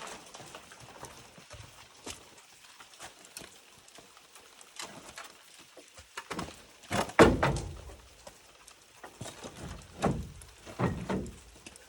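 Irregular thuds and knocks, the loudest a heavy thud about seven seconds in, followed by a few more knocks near the end.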